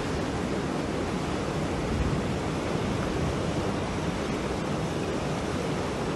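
Water pouring steadily over the rim of a reservoir's bellmouth overflow spillway and plunging down its shaft: a continuous, even rushing.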